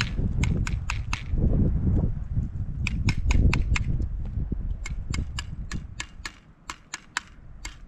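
Footsteps crunching on frozen snow: a quick, even series of sharp crunches about four to five a second, pausing briefly about a second in. A low rumble of wind on the microphone sits under the steps for the first two thirds and then dies away.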